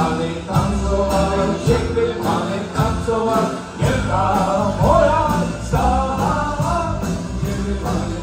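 Live dance band playing, with a steady drum beat of about two strokes a second under a lead melody.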